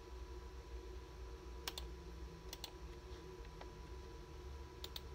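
Computer mouse button double-clicked three times, each a quick pair of sharp clicks, over a faint steady low hum.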